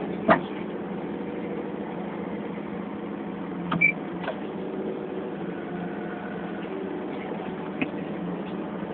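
Diesel engine of an Atlas excavator running steadily, with a few sharp snaps: one about a third of a second in, a pair near four seconds, and one near eight seconds.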